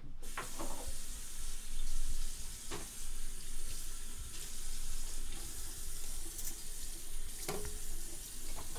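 Water running steadily from a tap into a sink, with a few light knocks and clinks over it. It starts and stops abruptly.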